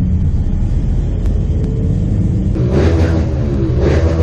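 Steady low rumble, with two short, louder pitched sounds about three and four seconds in.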